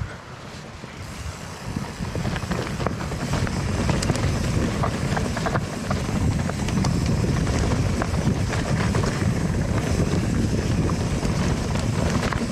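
A steel hardtail mountain bike rolling fast over rough, rocky singletrack, with scattered clicks and rattles from the bike and wind buffeting the microphone. It gets louder over the first few seconds.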